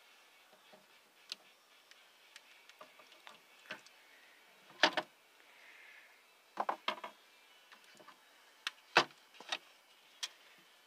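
Scattered light clicks and knocks as a hand handles a small balsa-wood model boat and its model trailer on a display turntable, lifting the boat off and turning it over. The two loudest knocks come about five and nine seconds in.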